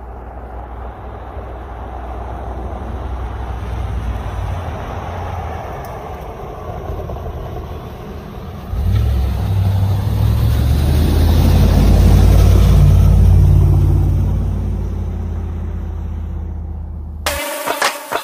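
A 2005 Dodge Ram 1500's 5.7-litre Hemi V8 driving the truck along, a deep engine rumble that swells gradually, steps up suddenly about nine seconds in, peaks and then fades away. Near the end it cuts off abruptly and a series of sharp knocks takes over.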